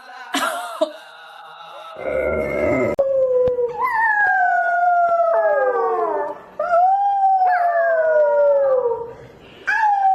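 A dog howling: a run of long howls, each sliding down in pitch and lasting two to three seconds.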